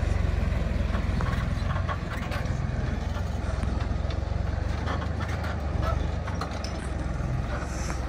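Heavy diesel machinery engine running steadily, with occasional light knocks.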